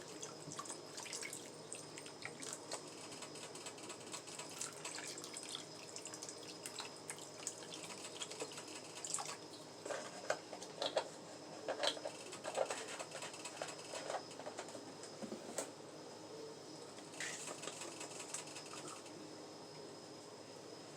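Faint watery kitchen sounds, with scattered light clicks and knocks that come most often in the middle.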